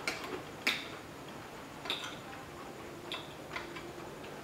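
Metal spoon and fork clinking against a ceramic plate while eating, about five short sharp clicks at irregular intervals, the loudest in the first second.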